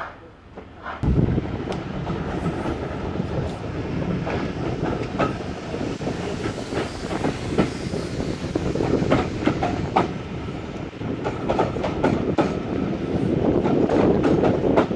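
A steam-hauled passenger train running, heard from an open carriage window: clattering wheels and rail clicks over a heavy rush of wind on the microphone that comes in suddenly about a second in.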